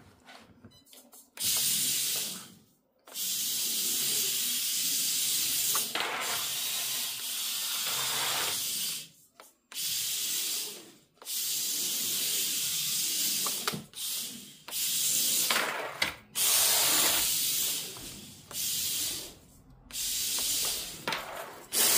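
A WLToys K969 mini RC drift car driven in short throttle bursts. Its small electric motor and drivetrain give a hissing whir that starts and stops every one to three seconds, with brief gaps of near quiet between.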